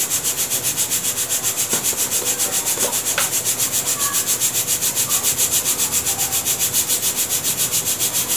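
Stovetop pressure cooker of dal on a gas burner, hissing steam in an even pulse of about six to seven beats a second. A few light clicks come from a plastic spice container being handled.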